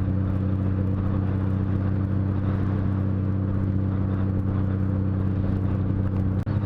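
Honda GL1500C Valkyrie's 1520 cc flat-six engine running at a steady cruise under way, with a steady rushing noise over it. The sound drops out very briefly near the end.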